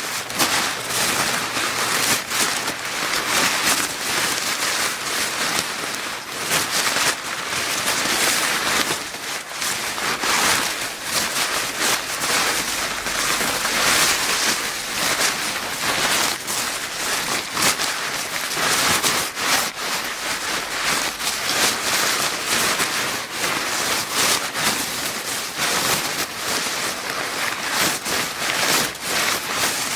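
Paper bag crinkling without a break, a dense mass of rustles and crackles of stiff paper being handled.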